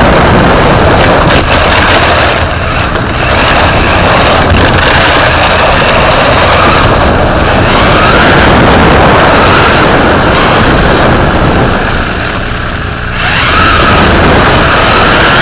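RC rally car driving on pavement, heard from its onboard camera: a loud, harsh rush of tyre, drivetrain and wind noise, with a motor whine that rises in pitch as the car speeds up. The noise eases off briefly twice, near the start and again near the end.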